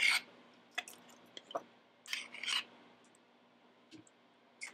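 Metal measuring cup scraped and tapped while mayonnaise is emptied out of it into a blender jar: two short faint scraping sounds, one at the start and one a little after two seconds in, with a few light clicks between them and another near the end.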